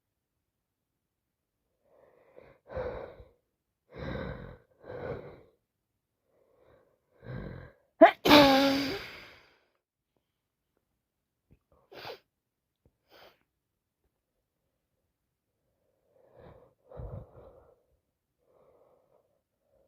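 Person with a wet head cold takes four short catching breaths, then sneezes loudly once about eight seconds in. A few quieter breathing sounds follow.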